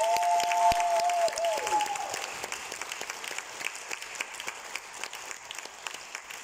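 Audience applause in a concert hall, loudest at the start and slowly dying away. Over the first two seconds a long held cry rings above the clapping and falls off at its end.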